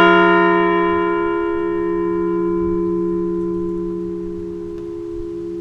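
A bell, struck once just before, ringing on and slowly fading: its higher overtones die away first while several low tones hum on. A memorial toll for a veteran whose name has just been read.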